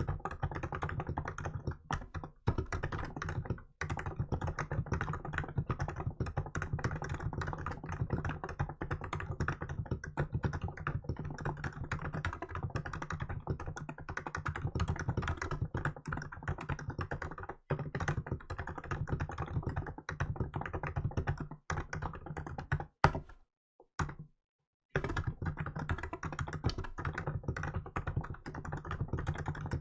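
Fast, continuous typing on a Hansung GK868B electrostatic capacitive (contactless) keyboard with milk keycaps: a dense stream of keystrokes, pausing briefly about 18 seconds in and again around 24 seconds, with one louder stroke just before the second pause.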